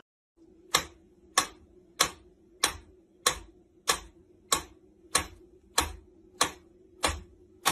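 Mechanical pendulum metronome ticking at a steady beat, about one and a half sharp ticks a second.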